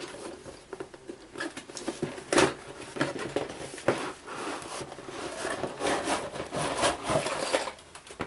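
A box and its contents being handled and rummaged through: continual rustling with many sharp clicks and knocks, the sharpest about two and a half and four seconds in.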